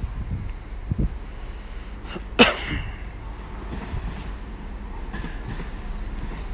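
Class 172 Turbostar diesel multiple unit running into the station: a steady low rumble, with a thud about a second in and a short, sharp burst about two and a half seconds in.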